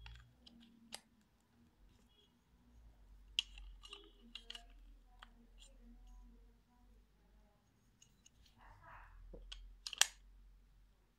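Soft, scattered clicks and taps of a small white Smok vape box mod being handled and turned in the hands, with a brief rub and then the loudest click about ten seconds in.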